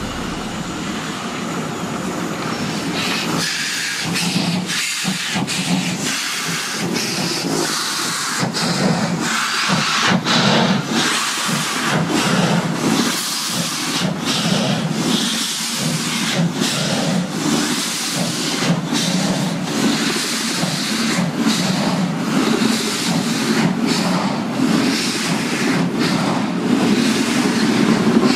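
Two-cylinder 2-10-0 steam locomotive of DR class 50 (50 3648) working past under steam. Its exhaust beats come unevenly, a limping rhythm caused by valve damage (Schieberschaden), with steam hissing, followed by the passenger coaches rolling by.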